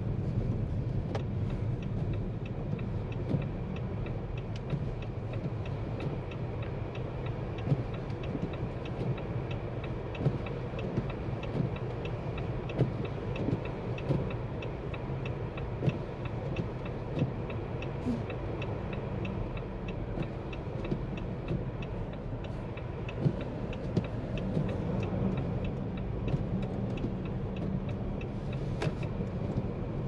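A 2023 Jeep Compass e-Hybrid, with a 1.5-litre four-cylinder mild-hybrid petrol engine, driving with a steady low rumble of engine and tyres. Faint light ticks run over it at a fairly even pace.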